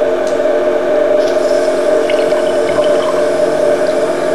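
ERWEKA DRT chewing gum tester running, a steady machine hum from its jaw drive and water circulation, with faint splashes of the liquid medium in the glass test cell.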